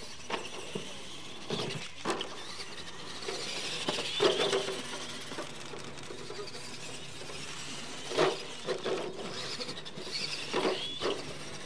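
Radio-controlled monster trucks racing on dirt: a high motor and gear whine that rises and falls, over the hiss of tyres on the track. Several sharp knocks from landings and impacts, the loudest about four and eight seconds in.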